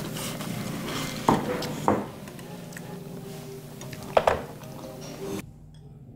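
Metal spoons and chopsticks clinking against ceramic dishes on a dining table: a few sharp clinks, with the loudest pair a little after four seconds. The sound drops away abruptly near the end.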